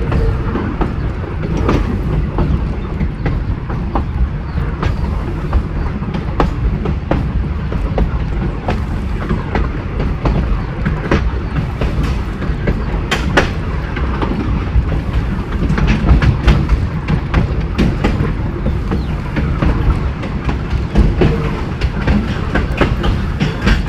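Narrow-gauge train running along the track: a steady low rumble with a quick, irregular clatter of wheels over rail joints.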